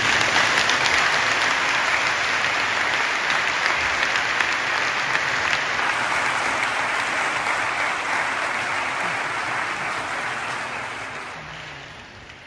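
Large audience applauding, a dense, steady clatter of many hands clapping that dies away over the last few seconds.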